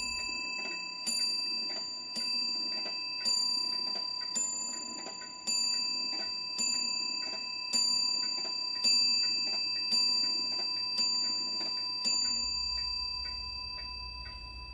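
A clock chiming twelve slow strokes, about one a second, each with a bright ringing tone that carries on between them, with faint ticking in the gaps: the clock striking midnight.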